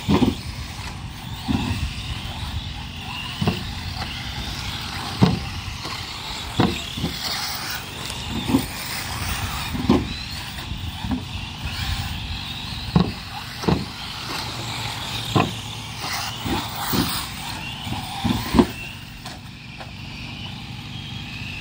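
Radio-controlled off-road race cars running laps on a dirt oval: a steady hum of motors and tyres with wavering high-pitched whines, broken by irregular thumps every second or two.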